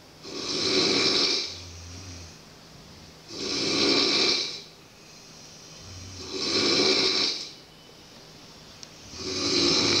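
A sleeping person snoring heavily and rhythmically, with four long snores about every three seconds.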